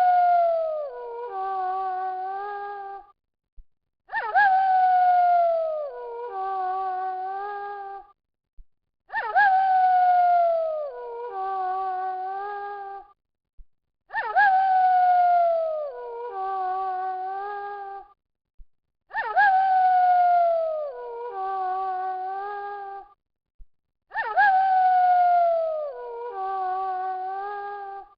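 Wolf howling: a long call that slides down in pitch, followed by a shorter, steadier lower note. The same howl repeats identically about every five seconds, as a looped recording.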